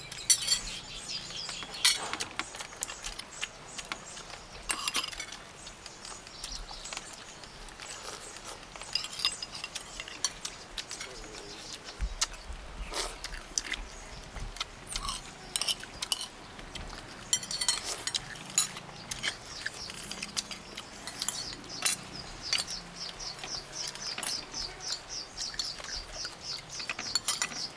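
Eating sounds: spoons clinking against plates and bowls, with close-up sipping and chewing of soup, and a quick run of short ticks near the end.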